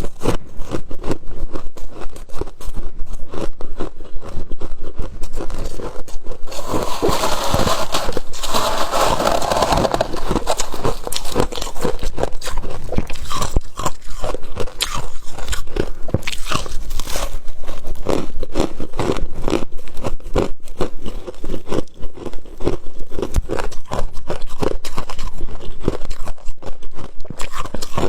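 Crisp freezer frost being bitten and chewed, a steady run of dense, irregular crunches, with a denser, hissier stretch about seven to ten seconds in.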